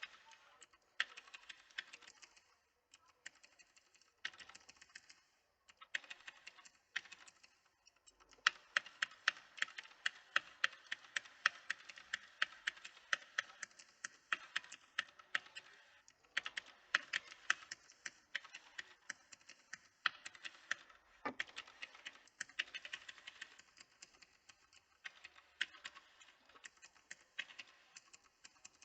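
Typing on a mechanical keyboard: rapid runs of sharp key clicks with short pauses between bursts.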